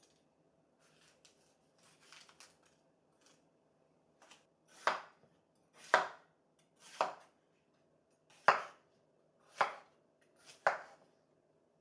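Kitchen knife chopping food on a cutting board: after a few seconds of faint scraping and handling, six firm cuts land about a second apart.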